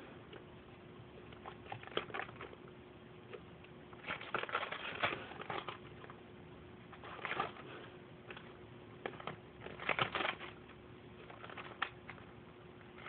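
Paper rustling and crinkling in short irregular spells, as sheets or pages are handled, over a faint steady hum.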